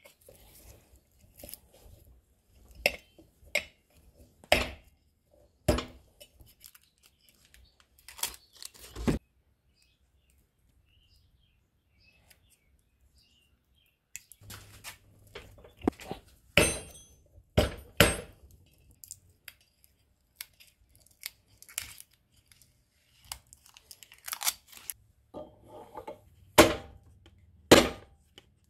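Hand work on a pedal tractor's metal wheel: irregular clicks, taps and knocks as a small metal hubcap is pressed on and worked with pliers and hand tools. There is a quiet stretch about a third of the way in, and a couple of sharper knocks near the end.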